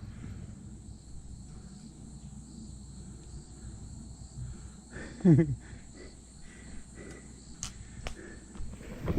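Low rumble of a mountain bike rolling along a dirt trail, with a steady high insect drone behind it. A short, loud sound falling in pitch comes about five seconds in.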